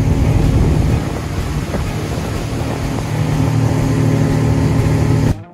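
Small fishing boat running under way: a steady engine drone mixed with wind and water noise, cutting off suddenly near the end.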